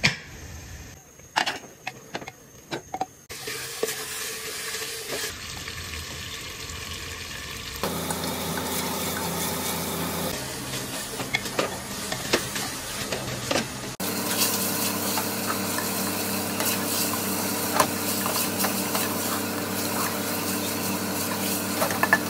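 Meat curry sizzling in an open aluminium pressure cooker while it is stirred with a wooden spoon, with scattered clicks of the spoon against the pot. It opens with a few sharp clicks as the cooker's lid and pressure weight are handled, and the sizzling gets louder in steps.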